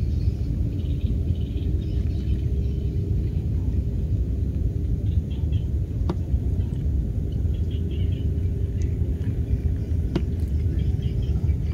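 Wind buffeting the microphone, a steady low rumble, with faint bird chirps behind it and two sharp clicks, about six and ten seconds in.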